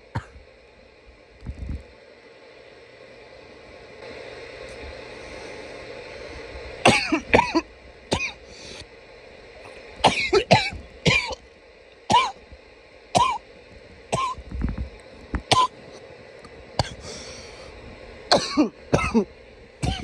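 A man coughing loudly and repeatedly, with throat clearing: a few quiet seconds, then short harsh coughs in irregular singles and quick pairs, about one a second.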